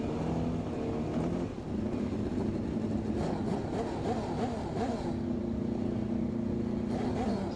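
Kawasaki engine of a dirt drag-racing motorcycle running at the start line, its pitch rising and falling as the throttle is worked, with a steadier stretch between the revs.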